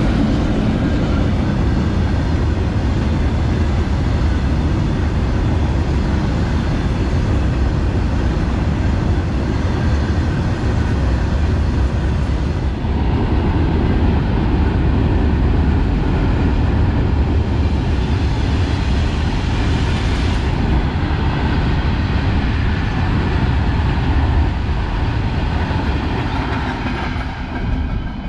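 Freight train of open wagons, hauled by two coupled Indian Railways electric locomotives, passing close by: a loud, steady, heavy rumble of wheels on the rails that eases off near the end as the last wagons go by.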